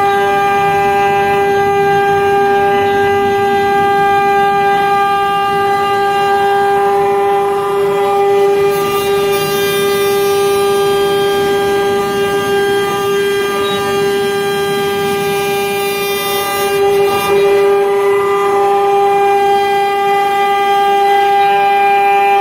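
CNC router spindle running at a steady high speed with a constant whine while a tapered ballnose bit carves a 3D raster pass. The cutting noise under the whine swells briefly a couple of times.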